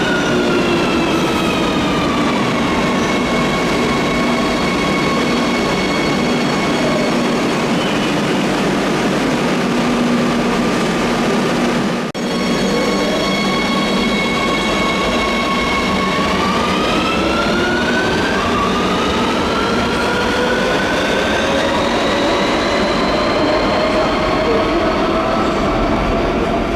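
Electric whine of a Metro de Madrid line 2 train's traction motors. Several pitches glide down as the train brakes, hold steady, then after a cut about halfway through they rise steadily as a train pulls away and accelerates.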